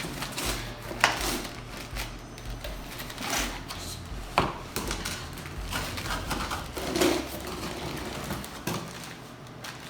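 Rustling and knocking as a boxed bike repair stand is unpacked: packaging handled and parts set down, with irregular knocks, the sharpest about a second in and again around four and a half seconds.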